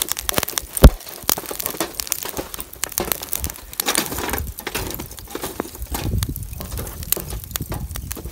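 Lump charcoal catching in a sheet-metal mangal, crackling with dense irregular ticks and one sharp pop about a second in.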